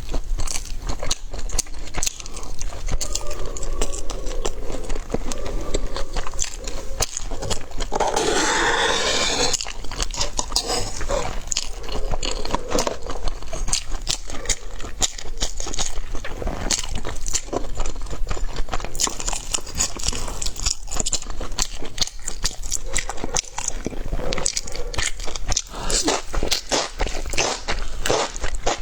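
Close-up chewing and biting of crunchy food: a steady run of sharp crunches, with a longer, louder crunch about eight seconds in.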